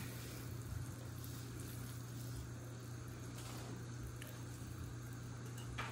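Quiet kitchen room tone with a steady low hum.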